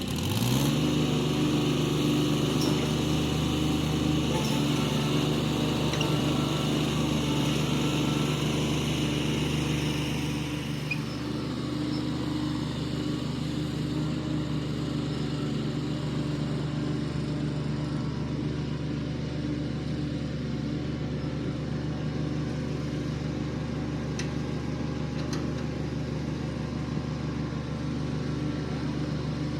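Small tractor's engine running steadily at an even speed under work.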